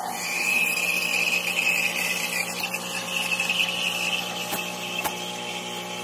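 Expobar Brutus espresso machine's steam wand steaming milk in a stainless pitcher: a steady high-pitched hiss. Under it runs the steady hum of the machine's pump brewing an espresso shot at the same time.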